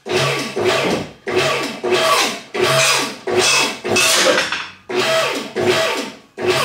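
Two-post car lift's motor and hydraulic pump run in short bursts, about eight quick starts and stops, raising the car body a little at a time off the engine sitting on its dolly.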